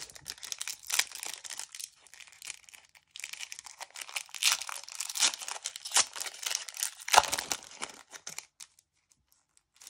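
Foil wrapper of a FIFA 365 trading-card booster pack being torn open and crinkled by hand: a busy run of crackling and tearing, with one louder knock just after seven seconds, that stops about eight seconds in.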